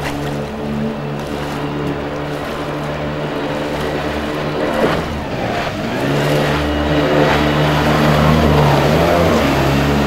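Small jet boat's engine running at high revs over the water. Its pitch dips and rises again about five seconds in, and it is louder after that.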